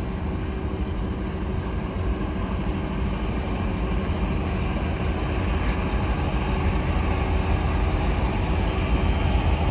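Steady low rumble of a heavy engine running, slowly growing louder; no horn is sounded.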